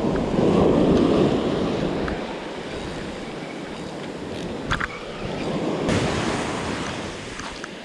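Surf washing onto a beach. One wave surges loudest in the first second or so, then the water settles to a steadier wash. Wind is on the microphone.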